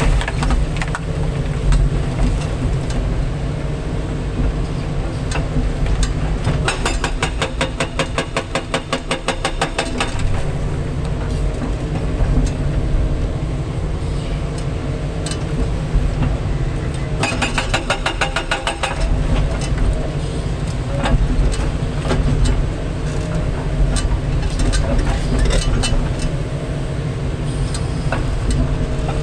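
Kobelco 350 excavator's diesel engine running steadily under load, heard from the cab. A 6,800 lb hydraulic hammer breaks concrete in two bursts of rapid rattling blows, about three seconds long some seven seconds in, and shorter about seventeen seconds in.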